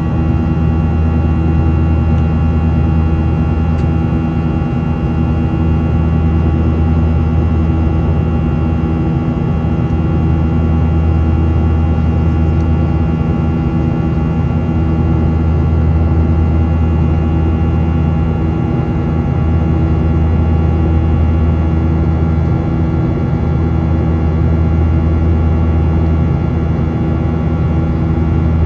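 Steady drone of a Boeing 737-900ER's CFM56-7B jet engines heard from inside the passenger cabin: a constant low rumble with several steady whining tones over it, unchanging in pitch and level.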